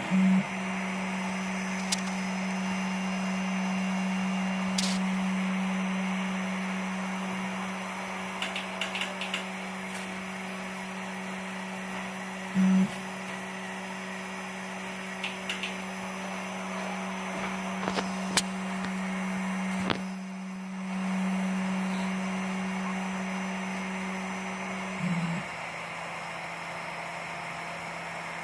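Home-built large-format 3D printer running, its stepper motors humming one steady low tone. The hum jumps louder briefly three times and drops slightly in pitch near the end, with a few light clicks in between.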